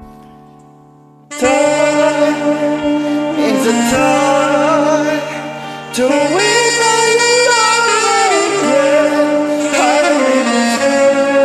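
Saxophone playing a slow melody with bending, sliding notes over a rock-ballad karaoke backing track, with a man singing along. The music comes in suddenly and loud about a second in, after the quiet tail of the backing track.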